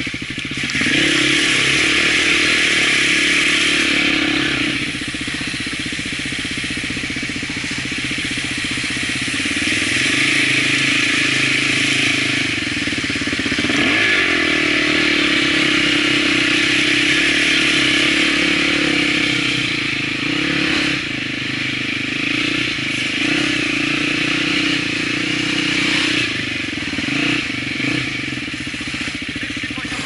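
Enduro dirt bike engine running and revving under load as it rides through a shallow river. It is louder in two long stretches, near the start and through the middle.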